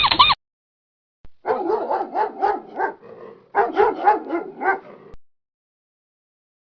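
Dog barking rapidly in two quick runs, each about a second and a half long, with a short gap between.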